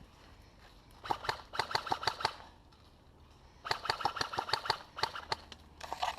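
Airsoft gun firing in rapid bursts: two volleys of quick, even clicking shots, each about a second long, and a short burst near the end.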